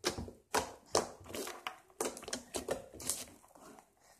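Slime being squeezed and stretched by hand, giving irregular sharp clicks and pops, two or three a second.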